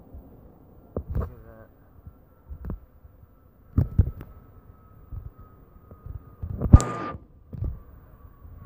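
Jet airliner passing overhead: a faint distant rumble with a thin engine whine that slowly falls in pitch. Several low thumps break through it, the loudest and sharpest about seven seconds in.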